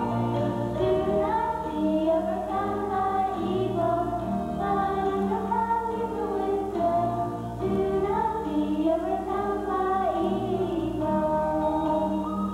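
Children's choir singing a song, with steady instrumental accompaniment underneath.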